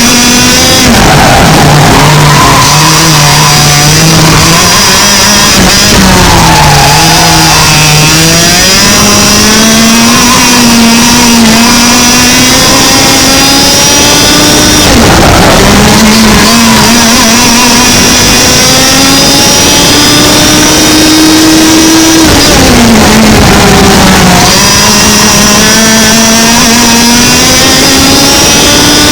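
100cc two-stroke kart engine heard on board at racing speed. Its pitch climbs steadily down each straight, then drops sharply as the driver lifts off for corners, about five times.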